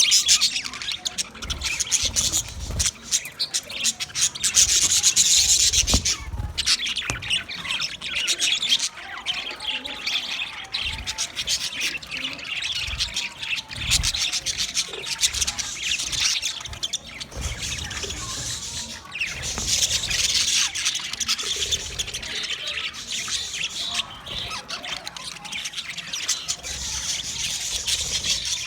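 Budgerigars chattering continuously: a dense mix of rapid warbles, chirps and harsh squawks.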